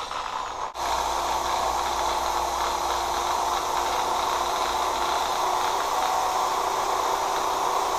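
Rotary tool running steadily while grinding rust off a brake caliper: a constant motor whine under a dense grinding hiss, with a brief dropout about a second in.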